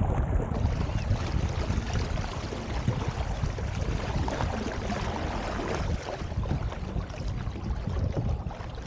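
Steady rush and splash of lake water against the hull of a moving sit-on-top kayak, with wind rumbling on the microphone.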